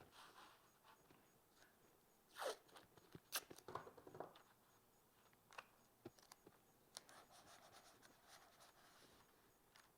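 Faint rustles, scrapes and light taps of thin walnut veneer sheets being handled and laid edge to edge, with a brief sweeping scrape about two and a half seconds in.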